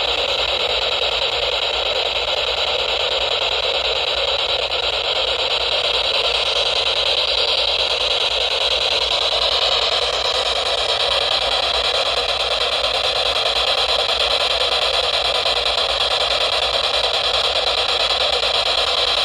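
SB-7 spirit box sweeping through radio stations, giving a steady hiss of radio static from its speaker.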